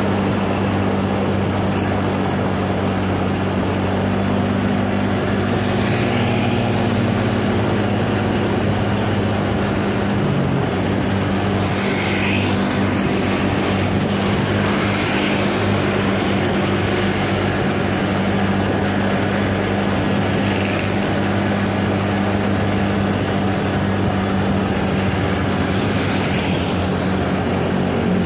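Vehicle engine running at a steady cruising pace, with road and wind noise. A few faint, short higher-pitched sounds come and go.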